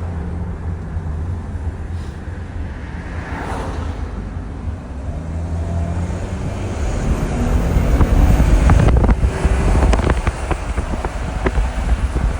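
Audi A7 engine running with a steady low drone and a brief rising whoosh about three seconds in, then running louder from about seven seconds on, with sharp ticks. The owner suspects a bad turbo or a boost leak.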